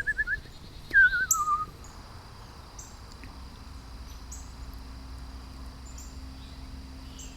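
Warbling whistled notes in the first second and a half, then a bird's short, sharp high chip notes repeating about every second and a half over a steady high drone of insects.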